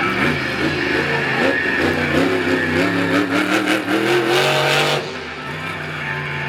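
Grinder monster truck's engine revving up and down hard, then easing to a lower, steadier run about five seconds in.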